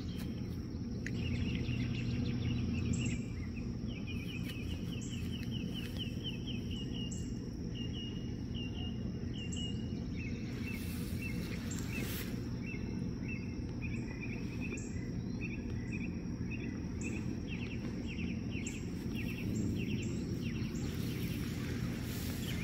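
Outdoor ambience of a small songbird chirping in runs of quick high notes, over a steady low background rumble.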